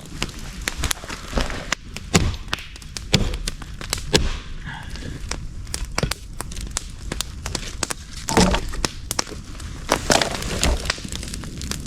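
Firewood being handled: sticks and branches cracking and snapping, with irregular knocks of wood on wood and a few louder cracks.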